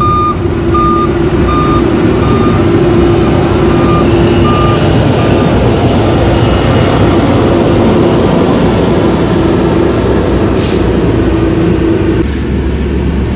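Rumpke front-loading garbage truck running with a steady engine hum, its reversing alarm beeping about twice a second for the first five seconds or so. A short hiss of air brakes comes about eleven seconds in.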